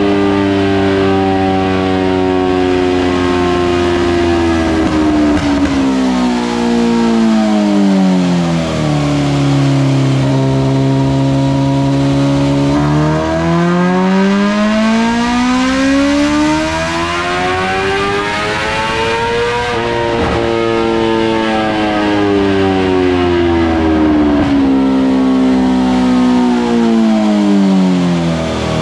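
BMW S1000RR-based superbike's inline-four engine running under load on a chassis dyno. The revs hold high, sink slowly to a low steady note, climb over about six seconds to a peak about two-thirds of the way in, then fall back and level off.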